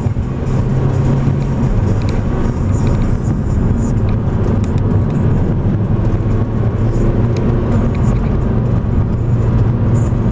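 Car engine and road noise heard from inside a moving car: a steady low drone.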